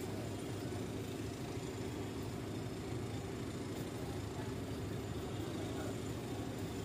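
Steady low hum of a running engine, without pause.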